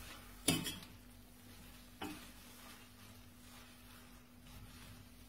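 Two short knocks of a utensil against the pot as drained pasta is stirred together with its sauce: a louder one about half a second in, a softer one a second and a half later. A faint steady hum lies underneath.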